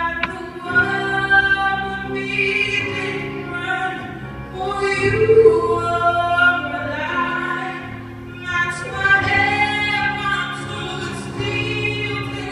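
A woman singing a slow solo into a microphone, her long held notes carried through the church's speakers over a steady low sustained accompaniment.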